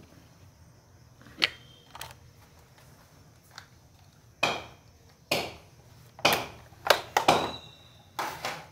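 An irregular series of about ten sharp knocks, several followed by a brief ringing tone. The knocks are loudest about a second and a half in and around the seventh second, and come in a quick cluster in the second half.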